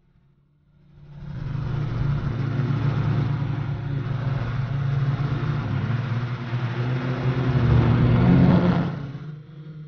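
Motor and propeller drone of a radio-controlled FPV model aircraft, heard from its onboard camera. It builds up from near silence about a second in, holds a steady pitched hum, rises in pitch and loudness around eight seconds in, then drops away near the end.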